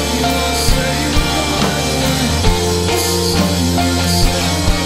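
Background rock music with a drum beat.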